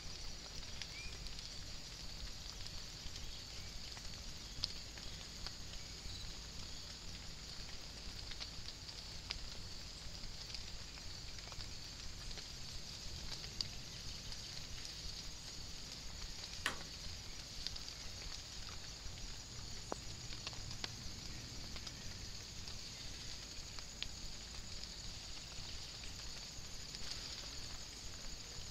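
Light rain falling in woodland: a faint, steady hiss with scattered ticks of drops.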